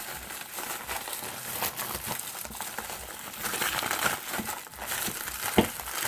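Plastic packaging crinkling and rustling as a parcel is opened by hand, with a sharp click near the end.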